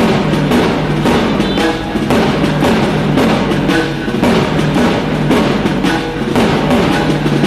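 Music with a prominent drum beat.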